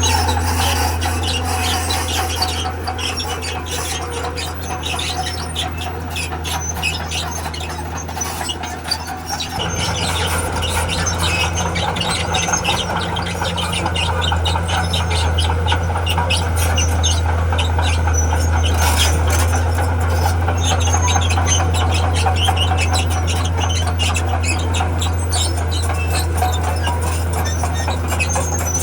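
Crawler bulldozer's diesel engine running steadily, with steel tracks squealing and clattering over it. The engine note changes about ten seconds in.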